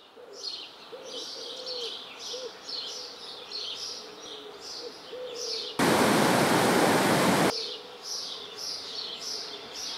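Woodland birds chirping: short falling chirps repeat every half second or so, with a lower, softer call beneath. About six seconds in, a loud burst of rushing noise cuts in for under two seconds and stops abruptly.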